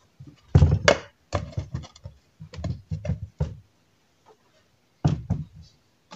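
Clicks and knocks of a clear plastic storage container's lid being pressed shut, in several short groups, then the container knocked down onto a wooden worktop about five seconds in.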